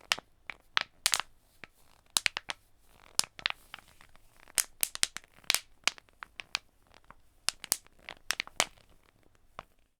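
Plastic PET bottle squeezed and crinkled as a home-made campfire sound effect: irregular sharp cracks and pops, several a second, over a faint hiss, imitating a crackling fire.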